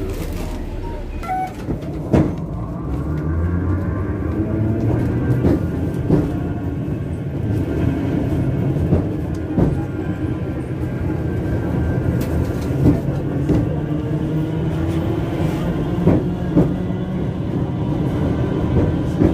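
Vintage heritage tram running, heard from inside the car: a steady low rumble of motor and wheels, broken by irregular sharp clacks and knocks from the wheels on the rails.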